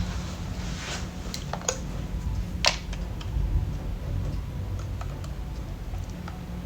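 Scattered light clicks and taps of plastic parts of a nail e-file being handled, a few sharper ones in the first three seconds, over a steady low hum.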